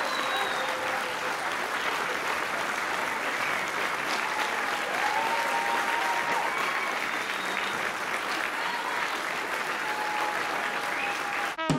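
Audience applauding steadily in a hall; the applause cuts off abruptly near the end.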